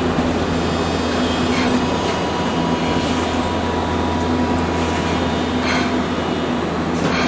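Hiroshima Electric Railway 800-series tram heard from inside the car while running: a loud, steady rumble and hum, with a couple of brief clicks or rattles near the end.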